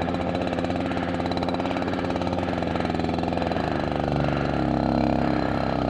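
Riga moped's small two-stroke engine running steadily at idle, its note shifting a little about four seconds in.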